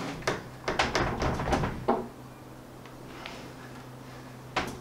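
Sharp, irregular metallic clicks and knocks of a spanner working at a tight bolt on a motorcycle engine's oil filter housing, clustered in the first two seconds with one more near the end. A faint steady hum runs underneath.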